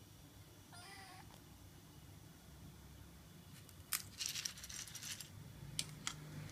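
A tabby kitten gives one short, bending meow about a second in. About four seconds in comes a burst of sharp clicks and crackles, the loudest sound here, followed by two single clicks.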